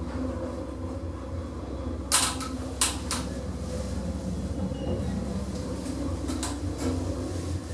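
Modernised car park lift in motion: a steady low machinery rumble, with a few sharp clicks and knocks about two to three seconds in and again near the end.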